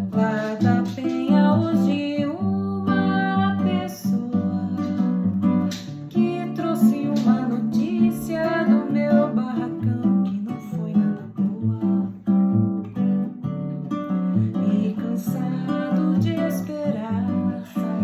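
Instrumental acoustic guitar music, with notes plucked and strummed over a steady bass line and no words sung.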